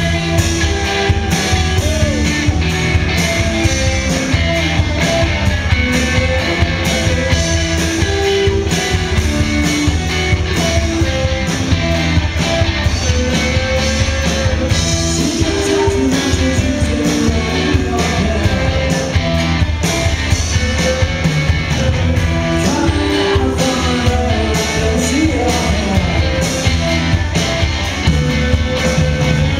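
Live rock band playing: electric guitars, bass guitar and a Sonor drum kit keeping a steady beat.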